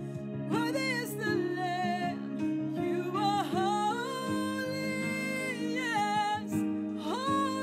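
A woman singing a slow worship song in long held notes over a sustained instrumental backing.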